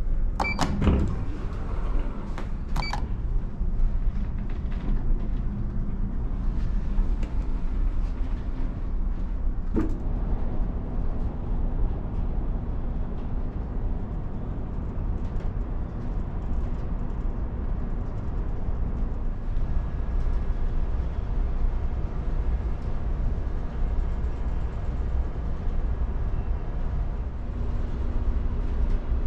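Steady low rumble inside a ferry under way, from the ship's engines and machinery. Near the start, two short beeps about two and a half seconds apart come as an automatic door's open button is pressed, and there is a single click about ten seconds in.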